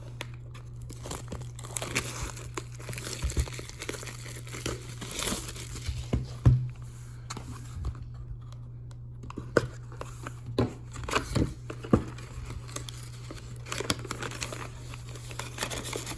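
Wrapping on a sealed box of hockey cards being torn and crinkled as the box is opened, with cardboard rustling and scattered sharp taps and knocks. A steady low hum runs underneath.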